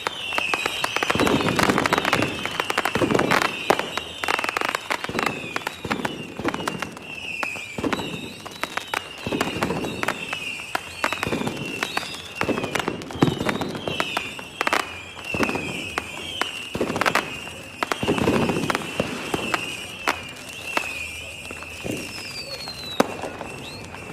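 Fireworks display: a dense run of bangs and crackling, with heavier booms a second, three, ten and eighteen seconds in.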